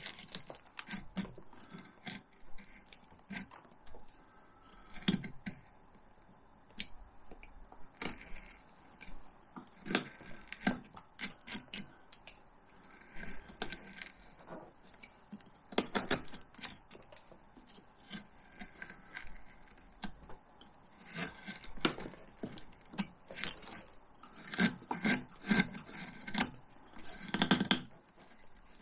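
Hand carving tools cutting into cottonwood bark: short slicing and scraping cuts in irregular clusters, with pauses between them.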